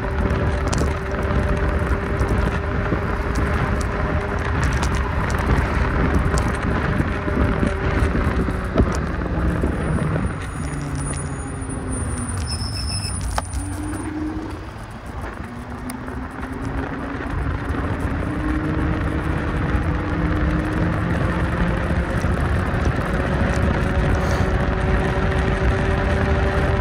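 A motor vehicle heard from on board under heavy road and wind rush. The engine note drops as it slows around the middle, then rises steadily as it speeds up again.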